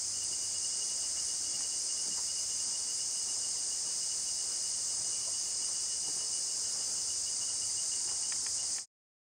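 Steady chorus of insects, a high-pitched hiss with one thin, even tone running through it, cutting off suddenly near the end.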